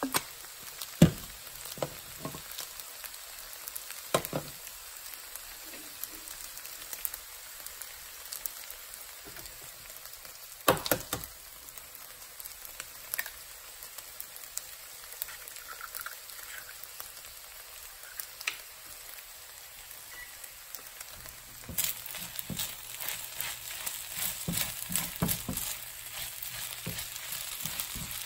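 Oil and then an egg frying in a nonstick pan with a steady sizzle, broken by a few sharp knocks. From about two-thirds of the way in, a silicone spatula scrapes and stirs kimchi fried rice in a pan, a quick run of clicks and scrapes over the sizzle.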